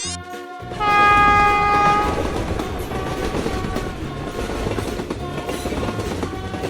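Cartoon music cuts off, then a train sounds one horn blast of about a second and a half. The train then runs on with a steady rumble and clatter of wheels on rails.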